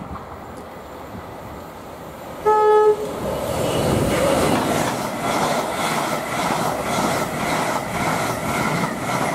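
A Greater Anglia Mark 3 express, driving van trailer leading, sounds one short single-note horn blast of about half a second as it nears the station. It then runs through at speed, its wheels clattering in a steady rhythm as the coaches go by.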